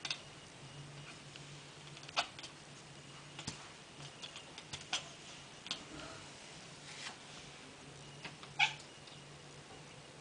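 Domestic cat chattering at pigeons outside the window: a string of short, clicky chirps a second or more apart, the loudest near the end.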